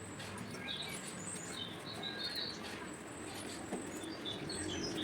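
Birds chirping: many short, high chirps scattered throughout, over a steady low hum.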